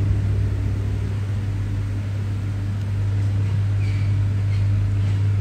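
A steady low hum with a faint hiss behind it, unchanging throughout, with a faint brief high tone about four seconds in.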